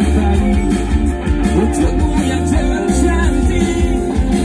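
A live rock band plays loud and steadily, with electric guitars, electric bass guitar and drums.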